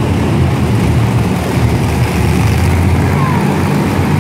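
Monster truck engine running loud and steady, a deep low-pitched drone echoing through an indoor arena.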